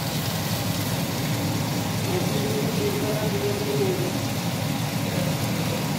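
Steady low hum with a hiss over it from a kitchen stove where chicken cooks in a pan over a lit gas burner, with faint voices in the background partway through.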